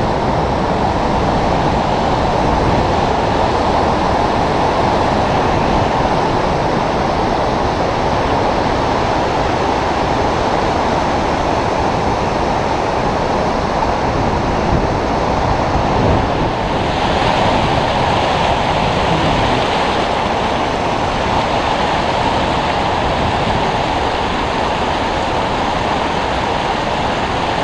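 Glacial meltwater river rushing over boulders, a steady loud rush of white water.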